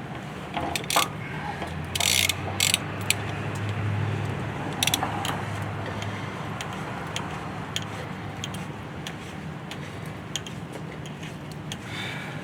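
Gland wrench working the threaded gland out of a Bobcat S530 skid steer's hydraulic bucket cylinder: scattered metal clicks, with short, louder metallic scrapes about two and five seconds in. A low hum runs from about two to six seconds in.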